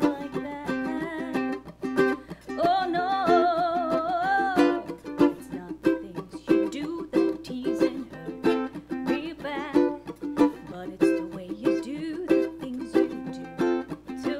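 Ukulele being played in a steady rhythm, with a woman singing over it; she holds one long note with vibrato a few seconds in.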